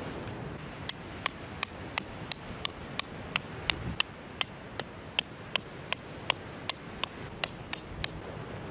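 A hammer striking a metal tent peg, driving it into sandy ground: a steady run of sharp strikes, about three a second and some twenty in all, with a short break about four seconds in.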